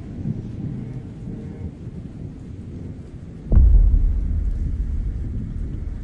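Thunder sound effect: low rumbling, then a sudden thunderclap about three and a half seconds in, its deep rumble slowly fading away.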